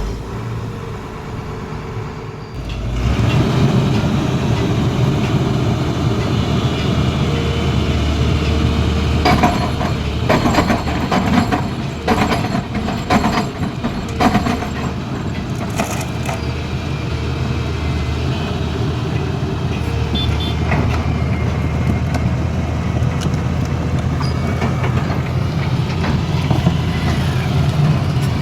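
Heavy diesel engine running just after starting, getting louder about three seconds in and then running steadily, with a series of sharp knocks in the middle.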